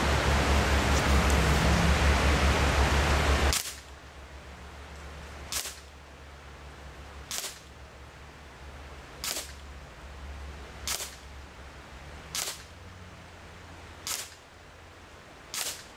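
Evanix Giant PCP air rifle firing in semi-automatic: eight sharp cracks, one every one and a half to two seconds. For the first three and a half seconds a loud steady hiss plays, then cuts off abruptly.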